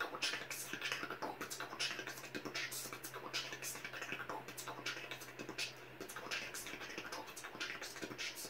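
Fast linear breakcore beatboxing: a rapid, unbroken run of mouth clicks and hissy snare-like bursts, several a second. A low steady hum runs under it and stops about six seconds in.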